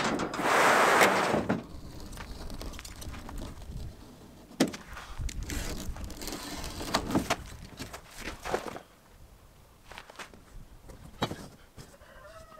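Heavy rubber stall mat slid across a pickup truck bed, a loud scraping rush for about the first second and a half. Then softer scrapes and knocks follow: a utility knife cutting through the thick rubber and a metal straightedge being handled on the mat.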